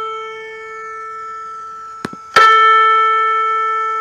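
Recorded piano A4 double-string unison from a tuning app, two strings sounding the same note and dying away. About two seconds in there is a click, then the unison is struck again and decays, now tuned clean with no audible beating.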